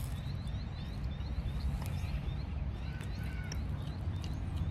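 A bird chirping in short repeated notes over a steady low rumble of wind or distant traffic, with faint crunching as a crumbed chicken fry is bitten and chewed.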